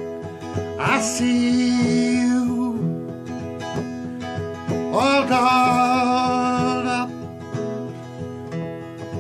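A man singing to his own strummed acoustic guitar: two long sung lines, one starting about a second in and one about five seconds in, with the strumming carrying on between them.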